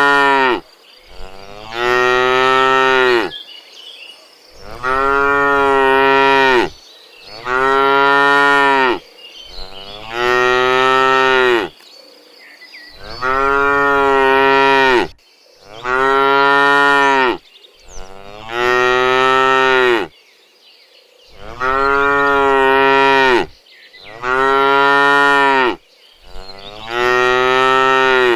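Cows mooing: a long, loud moo about every two seconds, one after another, with short pauses between calls.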